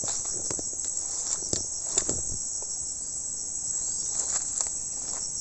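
Steady, high-pitched chorus of insects buzzing, with several brief clicks and rustles, the sharpest about two seconds in.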